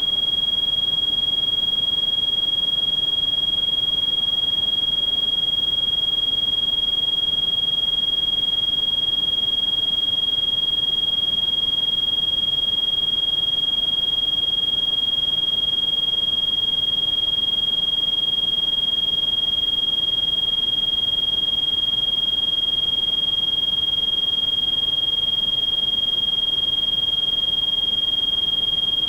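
A single steady, high-pitched electronic sine tone, whistle-like, held without a break over a faint hiss: a synthesized tinnitus-masking tone.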